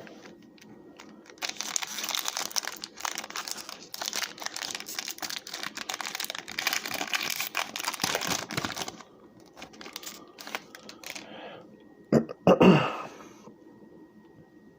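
Foil wrapper of a Yu-Gi-Oh booster pack being torn open and crinkled, a dense crinkling that lasts several seconds. Then come scattered handling rustles and a brief louder rustle near the end.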